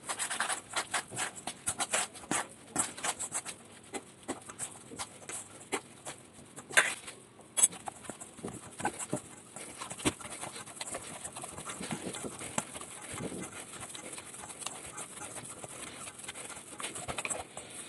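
Hands mixing and kneading flour and liquid into dough in a stainless steel bowl: irregular scratching, scraping and small clicks of fingers and dough against the metal, busier in the first half and softer as the dough comes together.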